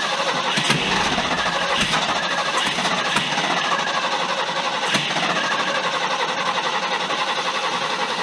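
A 1974 Ford F-350's 390 V8 cranking and firing, a steady, fast, even churning: an engine that has not run in years being brought back to life.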